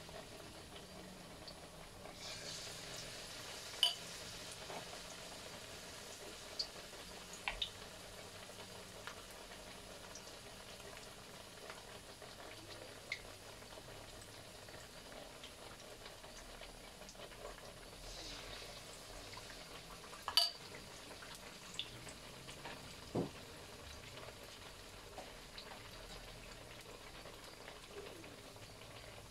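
Battered breadfruit slices deep-frying in a wok of hot oil: a steady bubbling sizzle, with a few sharp clicks now and then, the loudest about four seconds and twenty seconds in.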